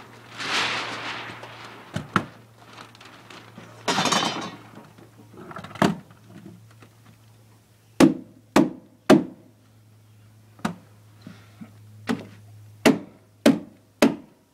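Hammer blows on the wall framing: a couple of scraping, sliding noises first, then a run of sharp knocks, some in quick sets of three about half a second apart.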